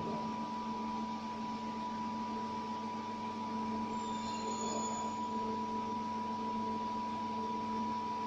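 Steady electrical machine hum with a constant high-pitched whine, with a faint short high tone about halfway through.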